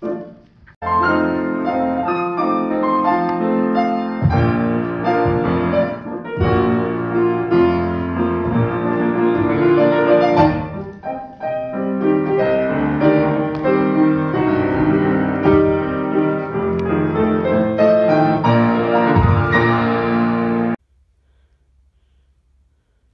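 Solo piano music accompanying a ballet dance, dense and steady for about twenty seconds, then cutting off suddenly.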